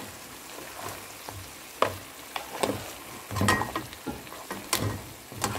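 Crab pieces frying in a non-stick pan, a steady sizzle, with a wooden spatula and tongs knocking and scraping against the pan and the shells about half a dozen times.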